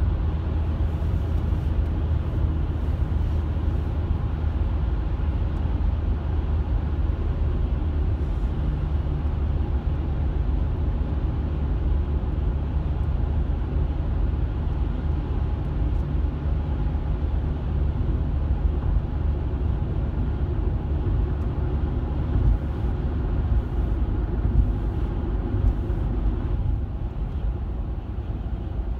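Car cabin road noise at motorway speed: a steady low rumble of tyres and engine heard from inside the car.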